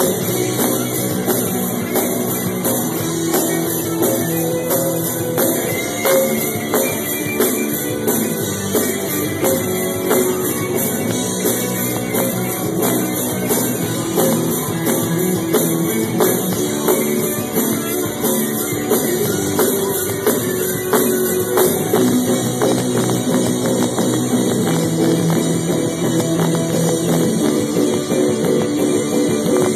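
A live rock band playing an instrumental passage without vocals: amplified electric guitars over a drum kit, with the drums keeping a steady beat.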